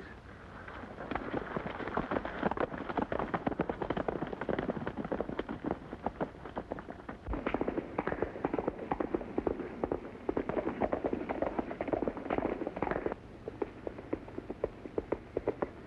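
Several horses' hooves beating on a dirt trail, a rapid, uneven stream of hoofbeats that grows heavier about halfway through and eases off again near the end.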